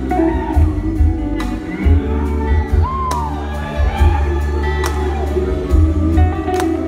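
A live band playing: drums and cymbals, bass and electric guitars, with a lead line that slides up and down in pitch.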